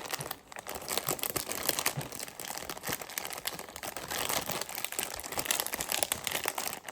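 Sealed GoGo's toy packs crinkling and rustling as they are handled, a steady run of small irregular crackles.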